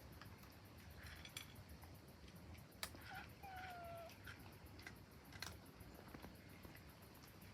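Cats eating, with scattered faint sharp clicks of crunching food and a short meow about three seconds in: a brief chirp followed by a slightly falling call.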